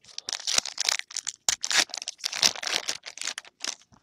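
A trading-card pack wrapper being torn open and crinkled by hand, as a rapid series of crackles and rips that thins out near the end.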